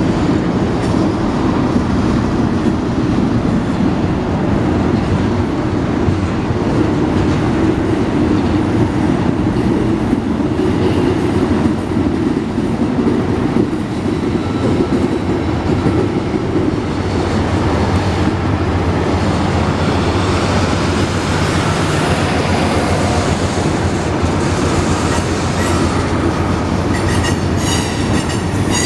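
Union Pacific freight train cars rolling past with a steady loud rumble and rattle of wheels on rail. Near the end, wheel flanges begin squealing in several high, steady tones.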